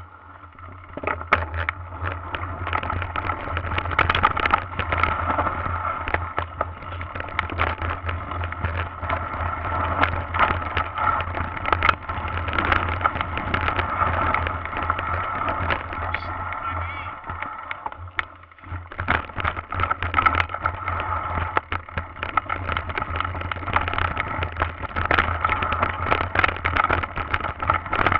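Mountain bike ridden over rough dirt and gravel trail: a dense irregular rattling and knocking from the bike and its handlebar camera mount as it jolts over bumps, over steady rushing tyre and wind noise with a low hum underneath. The rattling eases briefly about two-thirds of the way in.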